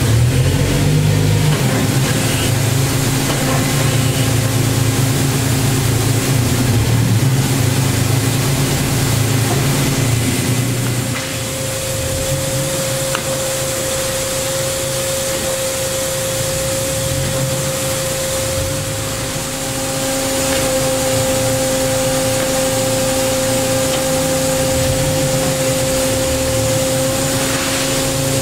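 Daewoo Puma 2000SY CNC lathe running under power, a steady machine hum from its drives. About eleven seconds in, the low hum gives way to a steady higher whine, and a second tone joins about twenty seconds in.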